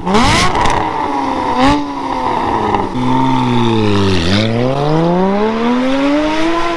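Porsche Cayman GT4's flat-six with a full IPE exhaust, revving hard under acceleration. It starts with a steep rising note and a brief break in pitch near two seconds. The note then drops to a low point about four seconds in and climbs again in a long rising pull.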